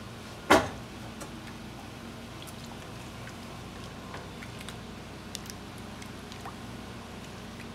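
Thick achiote marinade pouring and dripping onto pieces of pork in a stainless steel pan, with soft wet squishing and small clicks as a hand works it over the meat. One sharp knock about half a second in is the loudest sound.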